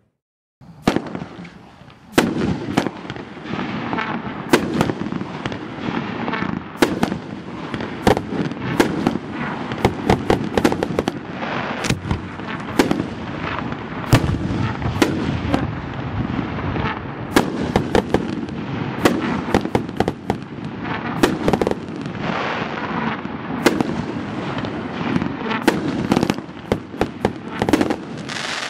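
Dominator Star Charger 500-gram consumer fireworks cake firing its shots in sequence: many sharp bangs, irregularly spaced, over a continuous noisy din. It starts about a second in.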